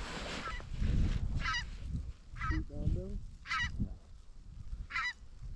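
A flock of geese calling overhead in short bursts of high, repeated honking, four or five times, over a low steady rumble.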